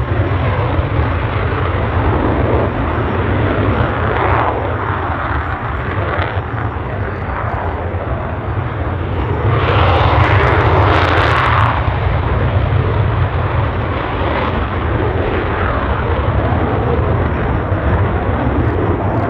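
F/A-18 Hornet twin jet engines running loud and steady on the runway, with a deep rumble underneath. About ten seconds in the roar swells louder and harsher for about two seconds, then settles back to a steady jet noise.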